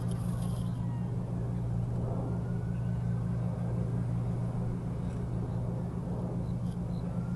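Helicopter engine and rotor running steadily: a constant low drone with a fast pulsing texture and no bangs or explosions.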